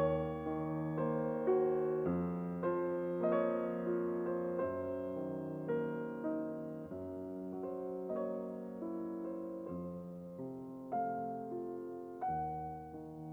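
Background music: a slow, gentle piano melody, notes struck and left to decay.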